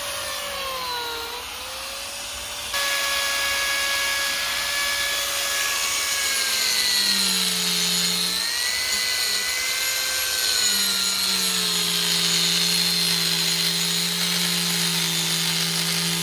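Electric angle grinder with a Manpa arm attachment, its small disc grinding into wood. The motor's whine sags in pitch as the disc is pressed into the wood and climbs back as it eases off. About three seconds in, the sound jumps louder.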